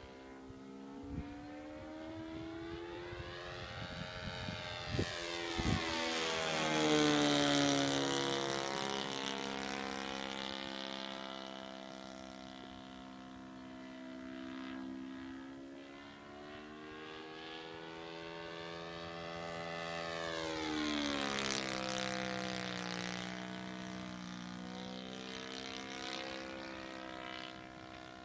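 Thunder Tiger 130 four-stroke engine of a radio-controlled model Stuka in flight, making two passes: its note climbs as the plane comes in and drops as it goes by, about six seconds in and again around twenty-one seconds, loudest on the first pass. A few brief knocks sound about a second in and around five seconds.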